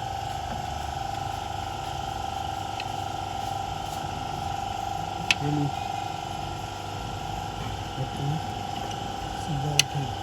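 Steady mechanical hum with a constant whine, broken by two sharp metallic clicks about five seconds apart, with a few brief low voice fragments.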